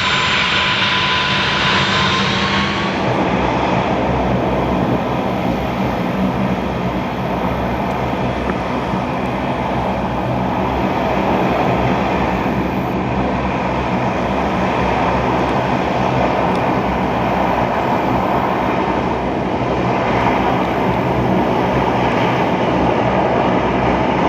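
Airbus A340-300 jet airliner's four CFM56 turbofans on landing approach: a steady jet rumble. A faint whine rises slightly and fades out in the first couple of seconds.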